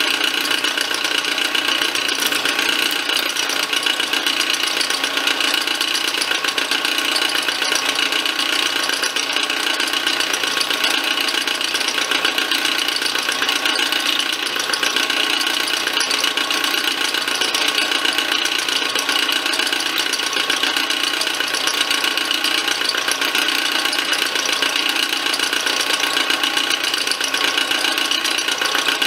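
Milling machine spindle driving a quarter-inch ball-nose end mill as it cuts a slot into a metal arbor shaft: a steady machining sound with several constant ringing tones.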